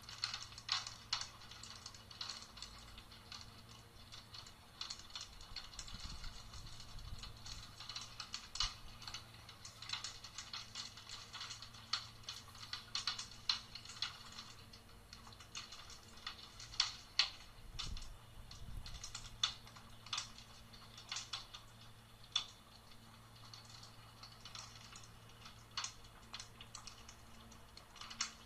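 Hailstones striking a roof and paving in a thunderstorm: a dense, irregular patter of sharp ticks with louder single strikes here and there.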